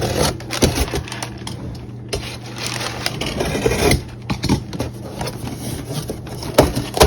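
A cardboard box being opened and handled: irregular scrapes, knocks and rustling of cardboard and packing paper, with a longer stretch of rustling and scraping about two seconds in.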